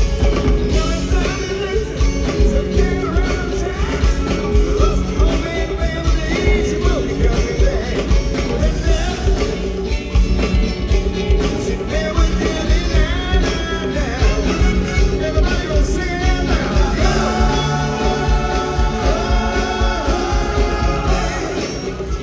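Rock band playing live through an arena sound system: electric guitars over bass and drums.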